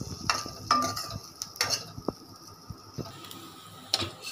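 A spatula stirring and scraping semolina balls around a non-stick kadhai as they are sautéed in a little oil, with a few sharp knocks against the pan in the first couple of seconds and another near the end, over a light sizzle.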